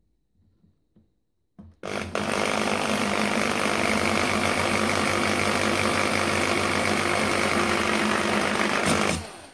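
Electric drill with a 4 mm bit boring a hole through an aluminium bicycle luggage rack. It starts about two seconds in, runs at a steady speed for about seven seconds, and stops near the end.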